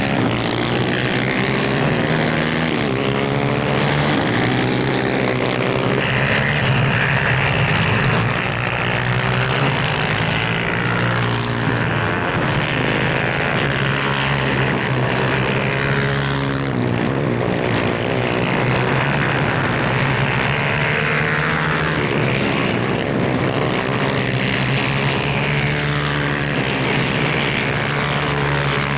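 Several 250cc superkarts racing, their engines revving up and down with several pitches overlapping as the karts pass.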